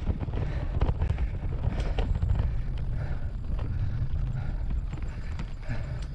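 Low rumble of wind on the microphone of a road bike climbing a hill, with the rider's heavy breathing coming in puffs about once a second.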